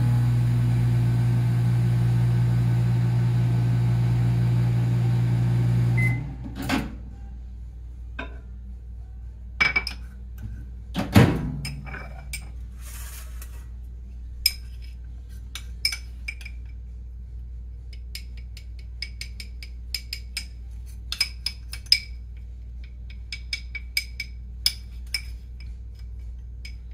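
Microwave oven running with a steady hum, which stops with a beep about six seconds in, followed by a click and a few knocks, one loud. For the rest of the time a metal spoon clinks and scrapes against a ceramic ramekin as its contents are spooned over a pan of pecans.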